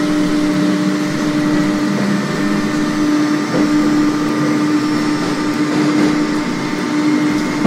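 A machine running steadily: a constant low hum with a couple of held tones over a rushing noise. It starts and stops abruptly.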